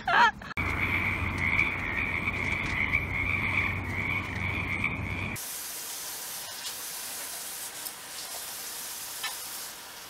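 A steady high-pitched calling chorus over a low rumble, which cuts off abruptly about five seconds in. A faint even hiss with a few light clicks follows.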